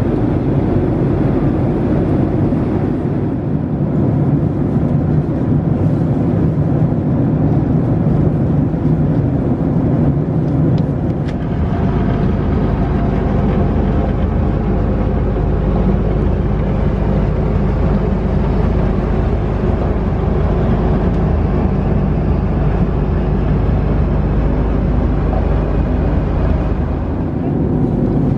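Steady in-flight cabin noise of a Boeing 767-300ER: a constant rush of airflow with a low engine drone. About twelve seconds in it shifts to a deeper, heavier rumble.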